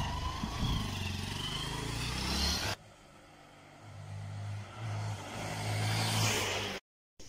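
Motorcycle engines running at road speed, heard from a moving bike with wind noise. After a cut about three seconds in, a Hero Impulse's single-cylinder engine is heard coming closer up the road, growing louder until the sound cuts off suddenly near the end.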